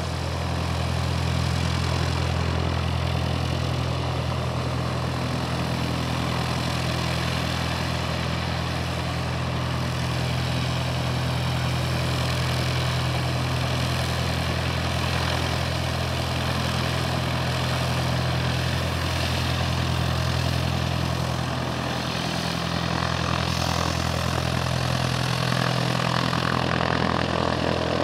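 Cessna 172R Skyhawk's four-cylinder Lycoming engine and propeller running steadily at low taxi power as the plane rolls along the ramp, a deep even drone with a rushing noise that grows stronger near the end.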